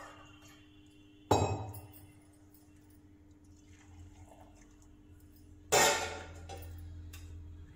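Stainless-steel kitchen bowls clinking: one sharp metallic clank about a second in and another near the end as a bowl is set back onto a stack of steel vessels, each ringing briefly.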